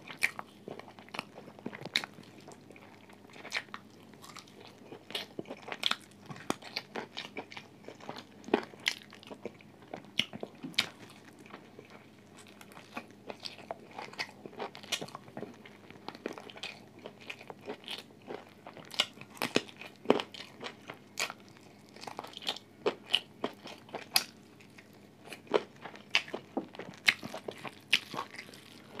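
A person chewing and biting food close to a mobile phone microphone: irregular sharp crunches and wet mouth clicks, several a second, coming unevenly throughout.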